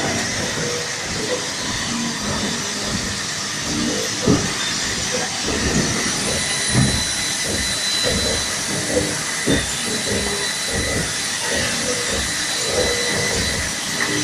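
Machine-shop noise from running CNC lathes and other machine tools: a steady hiss with a thin high whine, and irregular knocks and clanks throughout.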